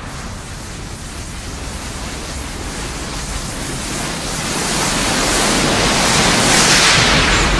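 Cartoon sound effect of a huge energy blast: a steady rushing noise spread across all pitches, swelling louder toward the end.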